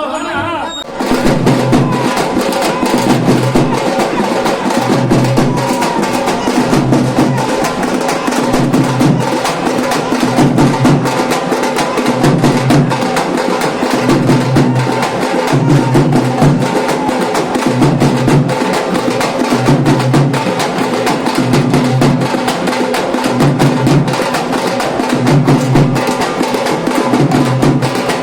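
Music carried by loud, fast drumming, with a heavier low beat repeating about once a second over dense quick strokes.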